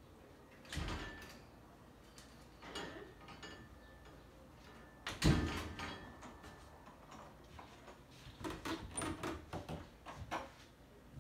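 A house front door and its metal security screen door being opened and shut, heard as a run of knocks and rattles. The loudest is a thump about five seconds in, and a cluster of softer knocks comes near the end.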